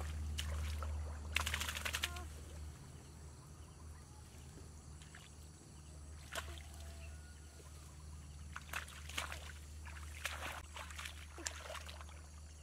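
Shallow muddy water sloshing and splashing as hands grope through it among sticks and branches, in short bursts at about one and a half seconds, around six seconds, and again from about nine to eleven seconds, over a steady low hum.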